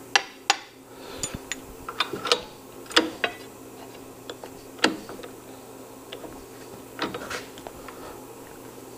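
Irregular sharp metal clinks and knocks from steel tooling being handled on a milling machine table: a steel straight edge and machine vises being set up, and a vise handle picked up. A faint steady hum runs underneath.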